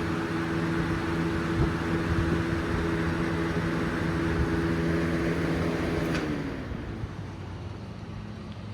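Early-to-mid-1990s Lasco Galaxy box fan running on high: a steady motor hum under the rush of air. About six seconds in, a switch clicks off and the hum slides down in pitch and fades as the fan begins to coast down.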